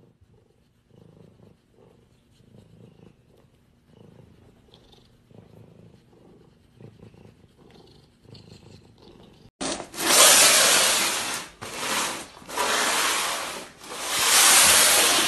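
A cat purring softly and rhythmically while being scratched under the chin. About ten seconds in, after a sudden cut, a much louder rushing noise takes over, swelling and fading about once a second.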